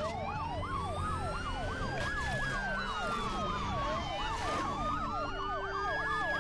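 Police sirens: a fast yelp cycling about three times a second, under a slower wail that rises, falls and rises again.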